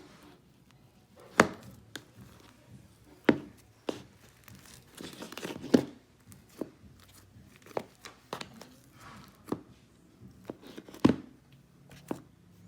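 Dried hard crust of iceberg slime crackling and cracking as it is pressed and broken, in sharp separate cracks at irregular intervals, with a short run of denser crackling about midway.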